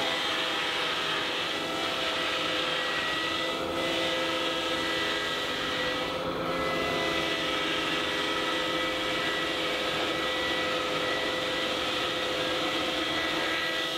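A converted spindle moulder running as a router, routing the 50 mm foam rebate out of the edge of a structural insulated panel as the panel is fed past the cutter. It is a steady whine with several held tones over a rushing noise, unchanged in level throughout.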